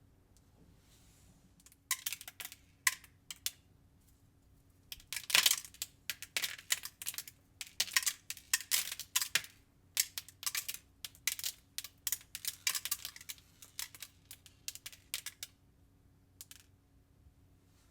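Quick, irregular crinkles and clicks of plastic being handled, starting about two seconds in, busiest in the middle and stopping near the end, over a faint steady hum.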